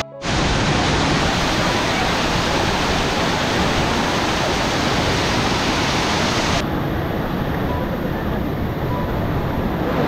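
Waterfall's rushing water: a loud, steady, even rush. It cuts out for a moment at the very start, and sounds duller from about two-thirds of the way through.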